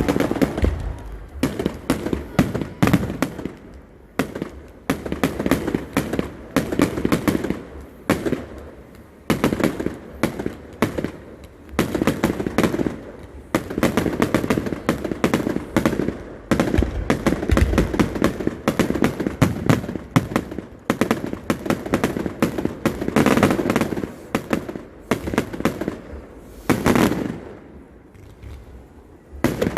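Fireworks going off in rapid volleys of sharp cracks and crackles, with brief lulls between volleys and a few heavier bangs near the end.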